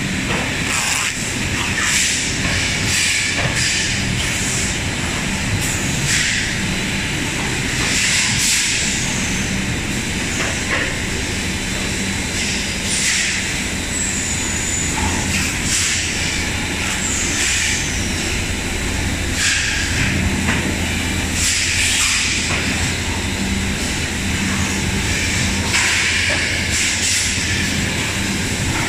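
Plastic-bottle production and packaging machinery running with a steady low hum, broken by repeated short bursts of compressed-air hiss at uneven intervals from the pneumatic machines.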